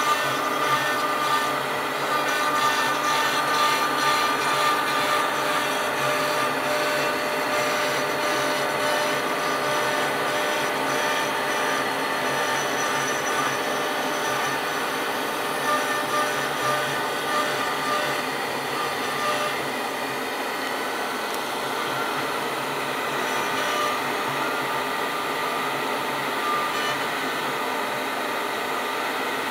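General Gorilla CNC router's spindle running steadily with a high whine, its cone-shaped engraving bit cutting grooves into a wooden board, with the even hiss of the cut under it.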